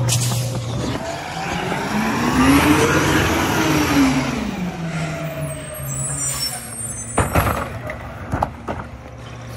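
Mack Granite garbage truck with a split-body McNeilus rear loader driving past close by, its diesel engine note rising in pitch and then falling as it goes by. A brief air hiss and a few sharp knocks follow near the end as it stops.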